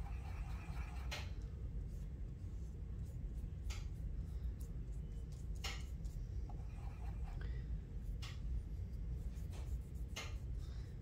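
Paintbrush swirling on a wet tempera paint cake and then brushing paint onto paper: a soft scrubbing at the start, quieter brush strokes later, and a few light clicks, over a steady low hum.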